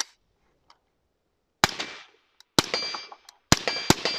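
Suppressed AR-15 rifle firing several shots, the last two close together, each report followed by a brief metallic ring. The rifle is firing with its adjustable gas block opened a click or two beyond the minimum setting needed to cycle.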